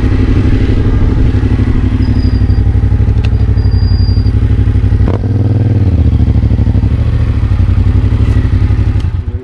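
Yamaha Tracer 7's 689 cc parallel-twin engine running through a GPR aftermarket exhaust, with a steady, even beat. About five seconds in the sound dips briefly and the pitch shifts, then it carries on steady until it fades out.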